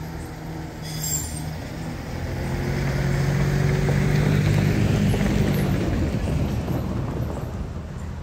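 A heavy motor vehicle driving past on the street, its low engine drone growing louder toward the middle and then fading away.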